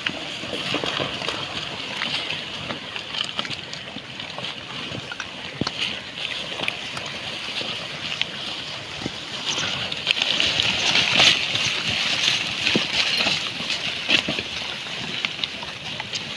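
A herd of pigs feeding on a rubbish heap: chewing and rooting through plastic litter, a dense crackle of small clicks and rustles, busiest from about ten seconds in.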